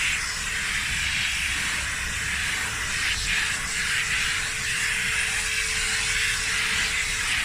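Vacuum cleaner running steadily: a loud rushing hiss of air through the nozzle over a faint, even motor whine.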